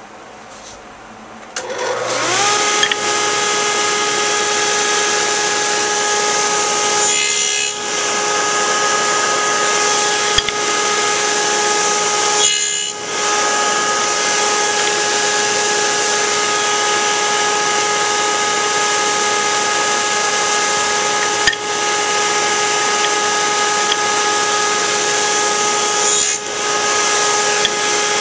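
Table saw with a stacked dado blade switching on about a second and a half in, winding up to a steady pitched whine and running on. The whine dips briefly three times as slats are fed through to cut tenons.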